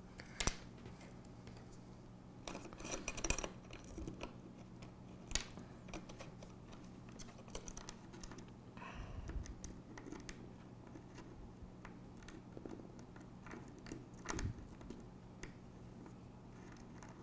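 Scattered light clicks and taps of small metal hardware being handled, as M3 bolts and an end cap are fitted to an aluminium C-channel, over a faint steady hum.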